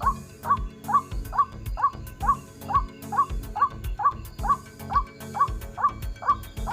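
White-breasted waterhen (ruak-ruak) calling: a short rising call repeated very evenly about twice a second, with a low thump under each.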